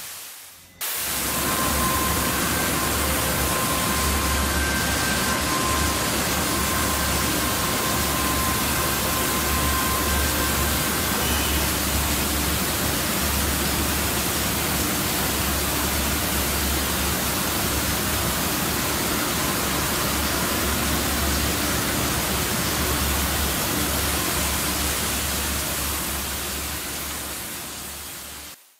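Steady hiss of a multi-jet gas ring burner heating a steel rebar, with an uneven low rumble underneath. It starts abruptly about a second in and eases off slightly near the end.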